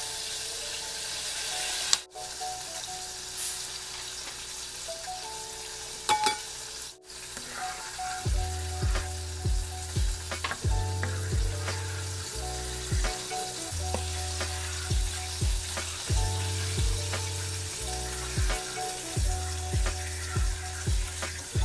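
Thin sauce sizzling in a nonstick frying pan while a spatula stirs it, under hip-hop background music whose beat and bass come in about eight seconds in.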